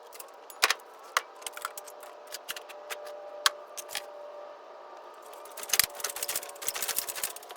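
Irregular sharp clicks and light clattering, with a dense run of quick clicks near the end, as materials or tools are handled.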